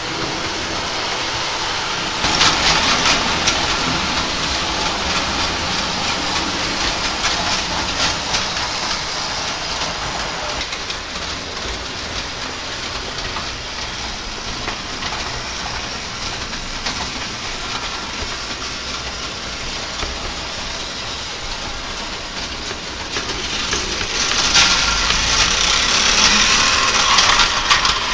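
Gauge 0 tinplate model trains running on metal track, a continuous rolling rattle and whir. It gets louder about two seconds in and again near the end as a train passes close by.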